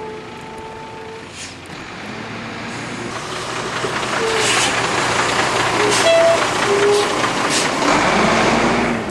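Heavy vehicle running on a wet road, its noise building over several seconds. A short steady tone sounds near the start.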